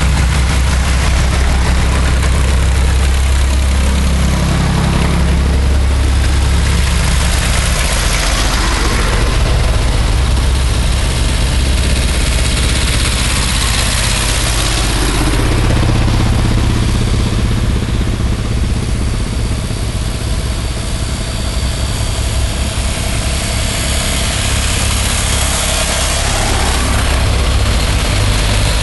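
A column of vintage farm tractors driving past one after another, their engines running in a steady low drone.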